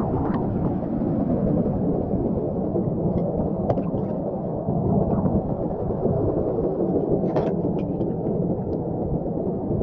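A steady low outdoor rumble, with a few sharp clicks of a knife blade tapping and scraping on wet rock: a pair about three to four seconds in and a louder pair about seven and a half seconds in.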